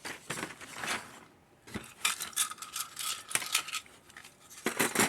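Loose plastic model kit parts clicking and rattling as they are handled and sorted, in a few bouts of rapid clicking with short pauses between.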